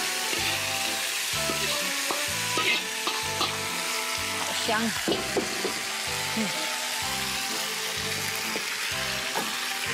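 Three-cup tofu and its sauce sizzling hard in a preheated clay pot (sand pot), a steady crackling hiss, with a few light knocks in the middle.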